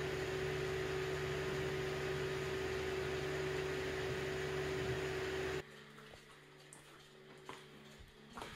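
Cooling fans of an opened-up DLP projector running with a steady hum. It cuts off abruptly about five and a half seconds in, leaving a few faint clicks.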